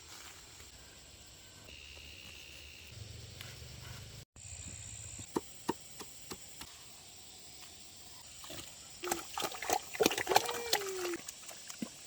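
Farm animals calling: a flurry of short calls mixed with knocks, loudest between about nine and eleven seconds in, with one falling call near the end of it.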